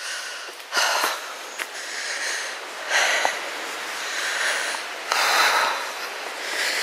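A walker's breathing close to the microphone, in noisy swells every second or two as he walks a woodland path.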